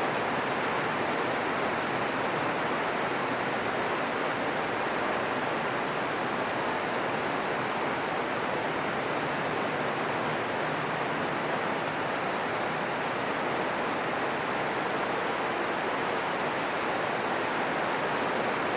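Steady green noise: an even, unchanging hiss centred in the middle range, with no thunder claps or other events. It cuts off abruptly at the end.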